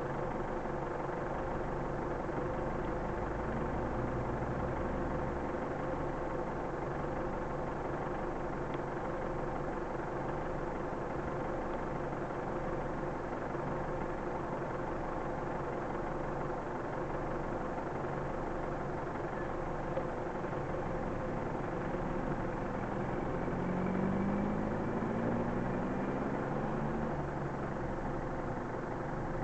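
An engine idling steadily, its pitch climbing briefly about three-quarters of the way through.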